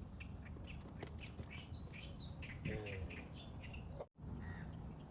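Small birds chirping, many short high calls repeated in quick succession over a low rumble. The sound cuts out for a moment about four seconds in.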